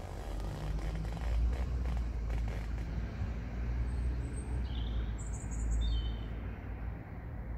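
Steady low outdoor rumble that swells in the middle, with a few short bird chirps about halfway through.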